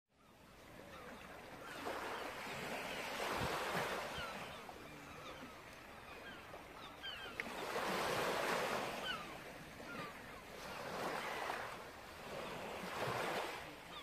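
Sea waves washing onto the shore, the surf swelling and fading in about four slow surges.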